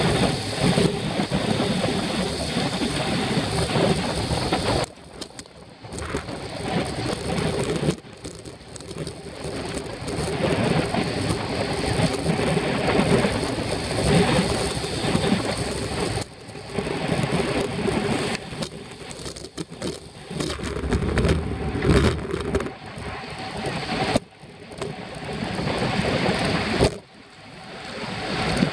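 Wind rushing over a bicycle-mounted camera's microphone at speed, with road noise underneath; the rush cuts out abruptly several times and comes back.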